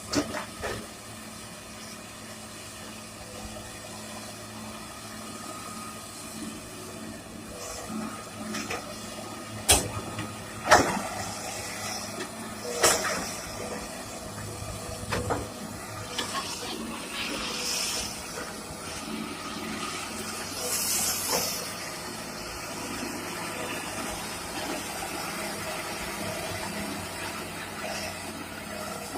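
Excavator engine running steadily while mud and water slosh, with several sharp knocks around the middle and a few short bursts of hiss.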